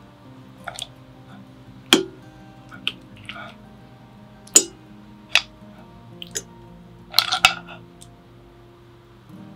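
Metal kitchen tongs and mussel and clam shells clicking and clinking against a ceramic bowl as the seafood is set on the pasta: a string of sharp knocks, loudest about two and four and a half seconds in, with a quick cluster of clicks about seven seconds in. Soft background music plays underneath.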